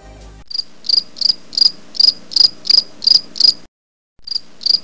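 Cricket chirping, a high even chirp about three times a second, dubbed in as a 'crickets' sound effect; it cuts out completely for about half a second near the four-second mark, then resumes.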